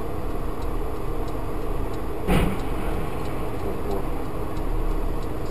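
Steady vehicle running and road noise as picked up by a dash-cam, with one brief knock a little over two seconds in.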